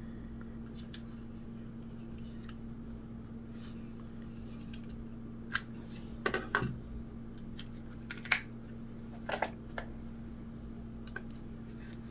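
Plastic clicks and light knocks as a small travel router with a USB modem plugged in is handled and set down on a wooden table. The sharp clicks come in a scattered handful in the second half, over a steady low hum.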